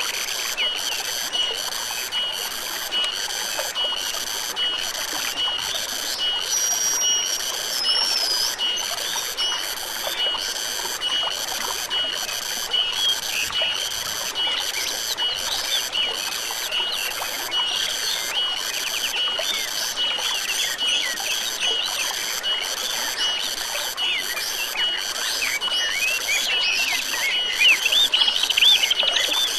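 Stream water flowing steadily. Over it, a high pulsing call repeats evenly a little more than once a second, with scattered bird chirps that grow busier near the end.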